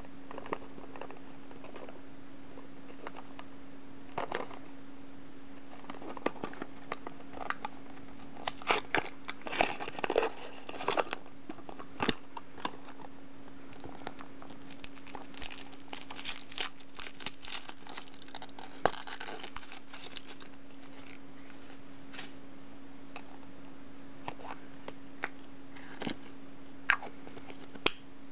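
Packaging being opened by hand: a Furuta chocolate egg's cardboard box and foil wrapper crinkled, torn and peeled, in scattered bursts of crackling that are busiest in the middle. A steady low hum runs underneath.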